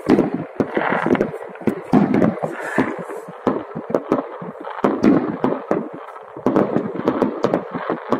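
Fireworks and firecrackers going off all around, a dense, irregular barrage of sharp bangs over continuous crackling.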